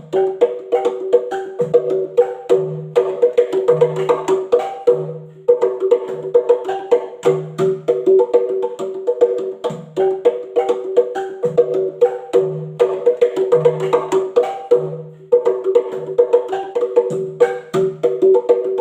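Cave rock formations struck like a drum in quick rhythmic patterns, several ringing pitches sounding together like a percussion ensemble and echoing. The phrases repeat with short breaks about every five seconds.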